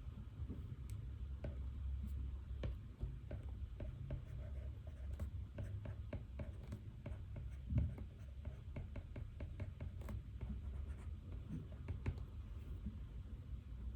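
Pen writing on paper: irregular small scratches and ticks of the nib, over a steady low hum, with one louder knock about eight seconds in.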